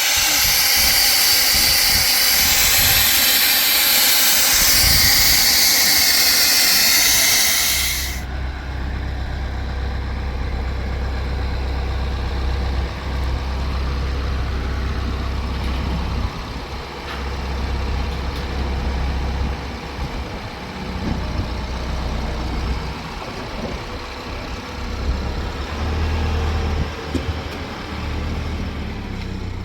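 A loud, steady hiss that cuts off suddenly about eight seconds in, followed by a steady low rumble.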